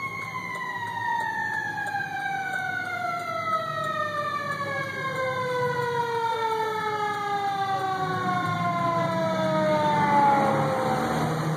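Fire engine siren on one long wail, falling slowly and steadily in pitch for about ten seconds. It grows louder as the truck comes close, and the truck's engine rumble swells as it passes near the end. Heard from inside a car.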